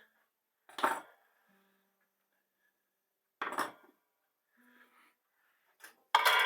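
A few separate knocks and clinks of hard objects, then near the end a sharp metallic strike that rings on with a long, slowly fading tone.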